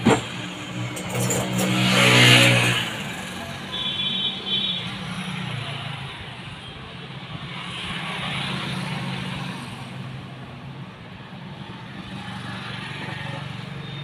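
Motor vehicle engines running and passing by, swelling about two seconds in and again around eight seconds, with a short high tone around four seconds in.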